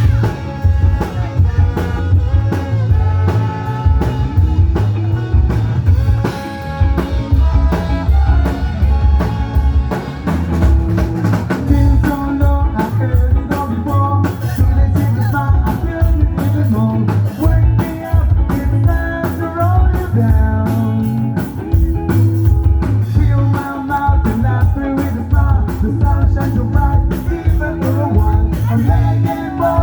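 Rock music with a steady drum beat, bass and a singing voice.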